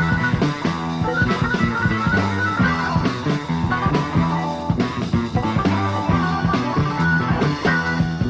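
Rock music with guitar and drums playing steadily, with sustained notes over a regular drum beat.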